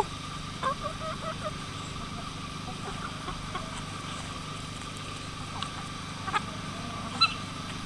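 A flock of chickens clucking softly now and then, with a few short sharp calls later on, the loudest near the end, over a steady low hum.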